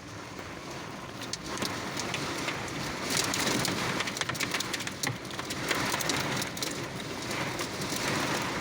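Heavy rain mixed with hail pelting onto surfaces: a dense hiss full of sharp ticks that thickens about a second and a half in and stays heavy.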